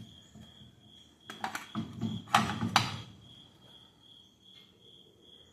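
A few sharp metal clanks and knocks in two short clusters, from parts and tools being handled while starting work on a car's rear hub. Underneath is a steady, high-pitched pulsing chirp.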